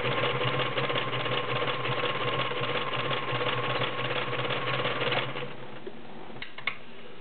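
Kenmore Model 1941 sewing machine running and stitching, its motor humming steadily under the rapid needle strokes. It stops about five seconds in, and two light clicks follow shortly after.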